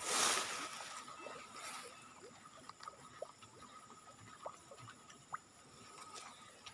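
A brief loud splash on the water surface, followed by faint sloshing of water with small scattered clicks.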